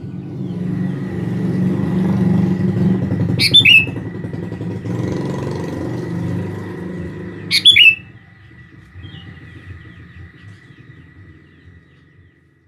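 Sooty-headed bulbul giving two sharp, loud calls about four seconds apart, over the low rumble of a passing motor vehicle that swells and fades away after about eight seconds.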